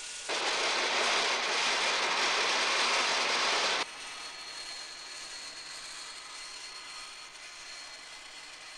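Power saw cutting through a moulded Plexiglas canopy pane, trimming off the excess: a loud, even hiss that stops abruptly a little under four seconds in, then a quieter steady running noise with a faint high whine.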